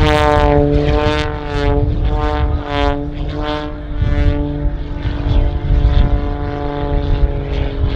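Propeller-driven aerobatic display planes running hard overhead: a loud, pitched engine-and-propeller buzz that dips in pitch at the start and pulses in loudness through the first few seconds as the plane tumbles, then holds steadier over a low rumble.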